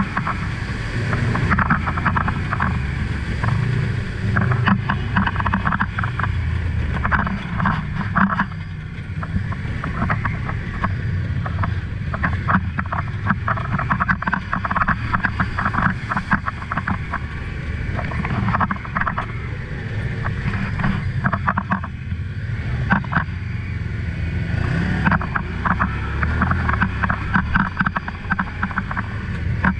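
Honda side-by-side UTV's engine running steadily as it drives through a shallow creek and over a rough gravel and dirt track, with water splashing at the start. Bursts of clattering and knocking run over the engine throughout.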